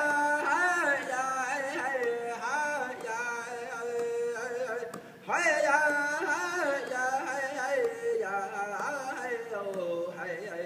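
A single voice singing a cappella: long held notes with wavering, ornamented pitch runs, broken by a short pause for breath about five seconds in.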